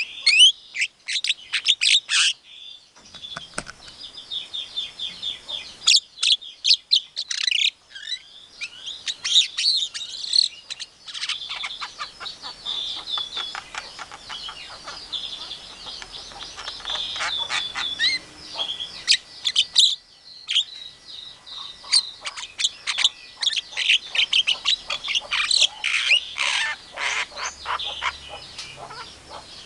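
Javan myna singing a fast, varied run of chirps, whistles and harsh chattering notes. It pauses briefly about three seconds in and again around twenty seconds in.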